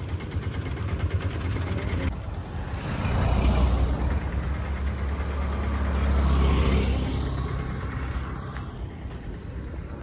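A motor vehicle passing on the road: a low engine-and-tyre rumble swells from about three seconds in, peaks a little past the middle and fades away, over a steady low traffic rumble.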